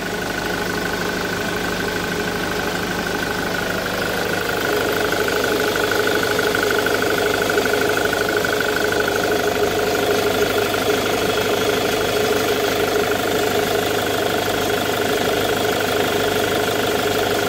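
Ford Mondeo 2.0 TDCi four-cylinder common-rail diesel with a Delphi injection system, idling steadily, with a steady whine over the idle. It gets a little louder about four to five seconds in as the microphone moves down toward the high-pressure pump.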